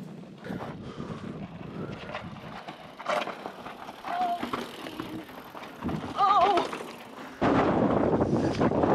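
Mountain bike riding on a dry, rocky dirt trail: tyres rolling over gravel and the bike rattling, with a short warbling cry about six seconds in. From about seven seconds in, loud wind buffets the microphone.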